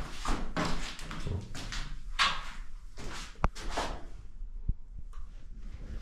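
Repeated rasping, scraping strokes with a couple of sharp knocks, about three and a half and four and a half seconds in.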